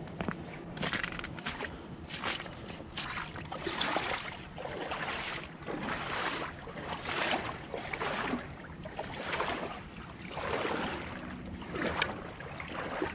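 Footsteps wading and sloshing through shallow lake water, about one stroke a second, with a few sharp clicks near the start.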